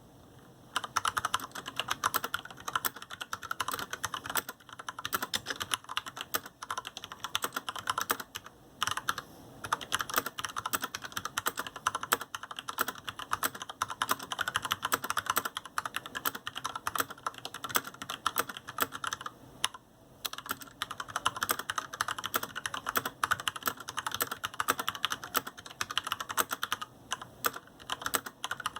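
Typing on a GANSS GS87-D mechanical keyboard with linear Cherry MX Red switches and PBT keycaps: a fast, continuous stream of keystroke clicks that starts about a second in, with two brief pauses.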